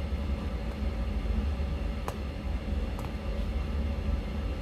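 Steady low rumble of the room's heater running, with a few faint light clicks about two and three seconds in.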